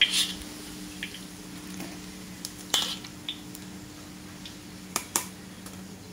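Metal kitchen utensils clinking against a steel wok and mesh strainer as freshly fried omelette is lifted out of the oil. There are a handful of sharp clinks, about one at the start, one near the middle and two close together near the end, over a steady low hum.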